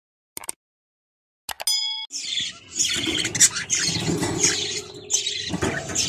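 A couple of clicks and a short bell ding from a subscribe-button animation. From about two seconds in come budgerigars in a cage, chirping and chattering without a break.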